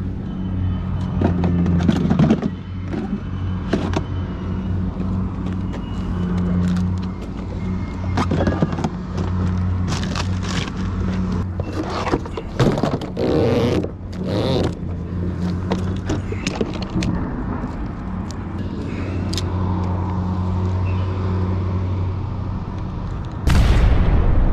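Fishing gear being handled and packed up: a cooler box and tackle knocked and scraped about, over a steady low hum. A louder noise sets in suddenly near the end.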